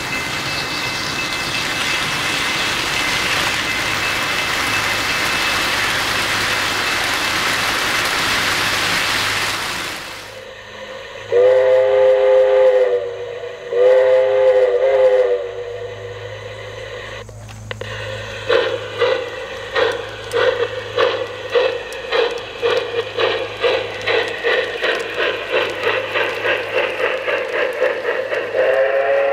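Wheels of an O-scale model freight train rolling along three-rail track in a steady rush. Then a model steam locomotive's onboard sound system gives two long whistle blasts, a click follows, and the locomotive starts chuffing in a steady beat that quickens as it pulls away, with another whistle starting at the very end.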